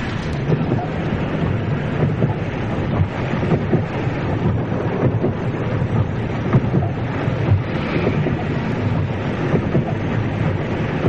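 Crowd hubbub: the dense, steady din of many people together, with no single voice standing out.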